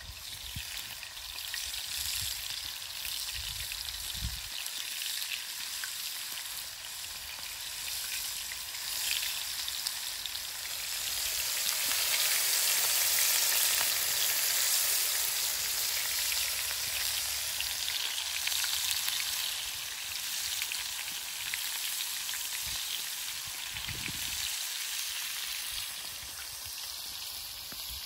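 Sardines frying in a pan over a wood fire: a steady sizzle with fine crackling that swells louder about halfway through, with a couple of brief low bumps.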